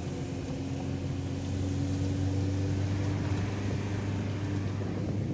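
Car engine and road noise heard from inside the cabin while driving, a steady low hum.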